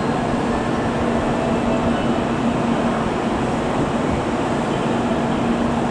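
Steady hum and whir of N700 series Shinkansen trains standing at the platform with their on-board equipment running, with a low steady tone.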